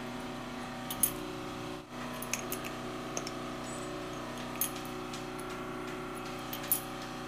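Metal clinks from a wrench and chrome sink mixer fittings as a wall-mounted kitchen mixer tap is set onto its wall points and its nuts are turned: a few sharp clicks over a steady hum.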